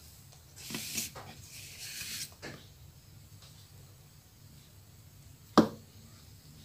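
Thick cake batter pouring and sliding out of a plastic bowl into an aluminium tube cake pan, with soft scraping and rustling in the first couple of seconds. A single sharp knock comes about five and a half seconds in.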